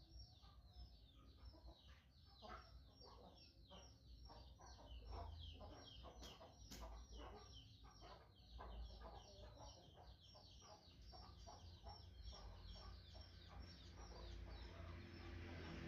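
Faint, rapid bird chirping: many short, falling chirps each second, over a low rumble.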